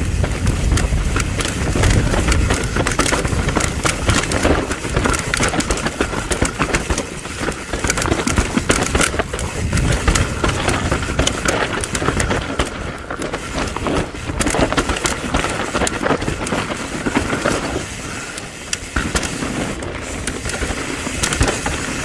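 Mountain bike, a 2023 Specialized Stumpjumper EVO, riding down a rough, rooty trail: tyres rolling and crunching over roots and rocks, with the bike rattling in a dense, steady clatter over a low rumble.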